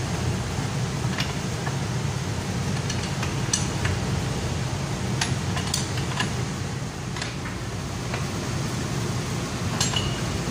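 Wrenches clinking against the steel bolts and nuts of a pipe flange as they are tightened: irregular short metallic clinks over a steady low hum.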